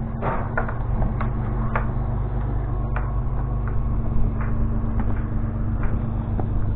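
An engine idling steadily, with scattered light clicks and knocks over it.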